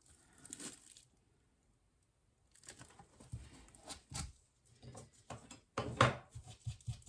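Soft handling noises: scattered light knocks and rustles after a quiet moment, with sharper knocks about four and six seconds in.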